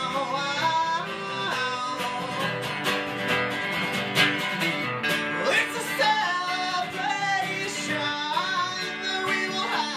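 Two steel-string acoustic guitars strumming and picking an upbeat country-folk tune, with a gliding melody line over them.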